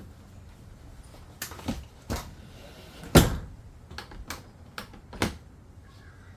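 A handful of irregular knocks and clunks from hard objects being handled, the loudest about three seconds in.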